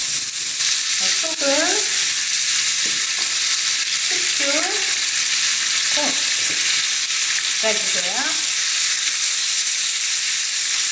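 Thin-sliced beef brisket sizzling steadily in a hot frying pan as its fat renders out. Wooden chopsticks stirring the slices squeak briefly against the pan about four times.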